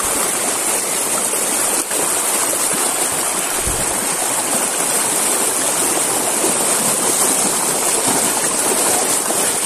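Fast-flowing river water rushing past in a steady, loud, even wash.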